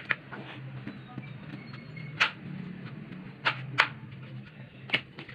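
Kitchen knife chopping a chayote on a wooden cutting board: about six sharp chops of the blade against the board at uneven intervals, two in quick succession at the start. A low steady hum runs underneath.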